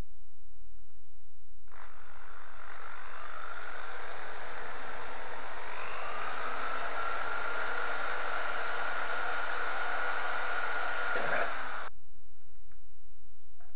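Electric drill running and boring a hole through the centre of a metal pie dish. The motor whine starts about two seconds in, rises in pitch as it speeds up, holds steady, then cuts off suddenly near the end.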